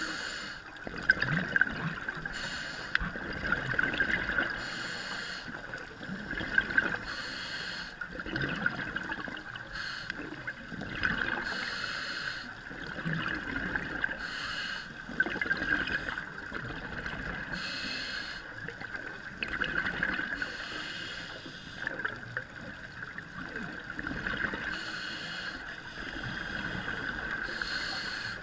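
Scuba divers' exhaled regulator bubbles heard underwater: a burst of bubbling every two to three seconds, with a steady high hum underneath.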